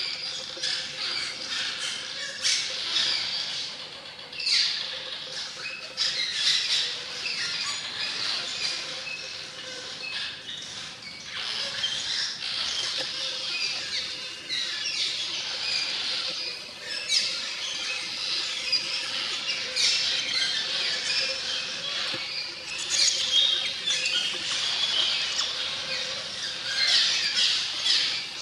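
A colony of cliff swallows calling around their mud nests: a dense, continuous chatter of high calls, swelling into louder flurries every few seconds.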